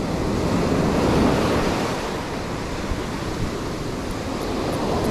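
Rough surf breaking and washing up a beach, a steady rush that swells about a second in and again near the end, with wind buffeting the microphone.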